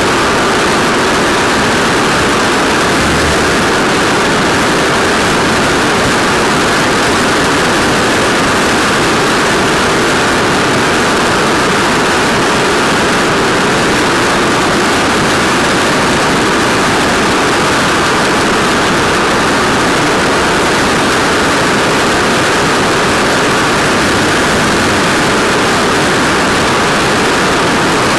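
Longboard's soft urethane wheels rolling on rough asphalt: a loud, steady road noise that holds unchanged throughout.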